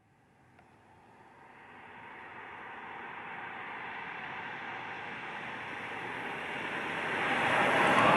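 A vehicle approaching and passing by: a rushing noise that builds from nothing, grows loudest near the end and then drops away quickly.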